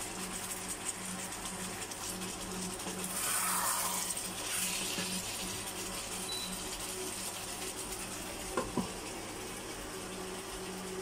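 Chicken adobo simmering in its sauce in a wok on an induction cooktop, a steady sizzle that swells for a couple of seconds a few seconds in. Near the end, two quick knocks as the glass lid is set on the pan.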